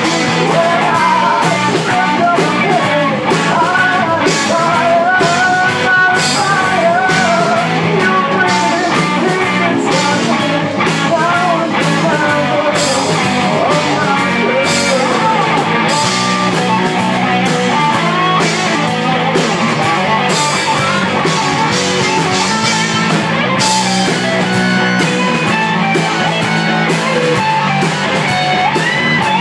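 Rock band playing live on electric guitars, with a wavering lead melody over steady, sharp rhythmic strokes.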